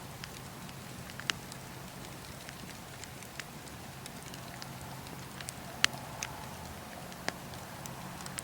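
Wood fire burning with a steady hiss and sharp crackles and pops every second or so, the loudest pop about six seconds in, over a low steady hum.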